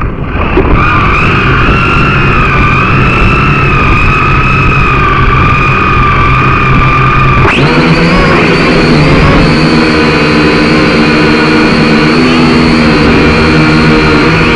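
Syma X5C quadcopter's small electric motors and propellers whining steadily, heard up close from the drone's own onboard camera. The pitch shifts abruptly about halfway through as the motor speed changes.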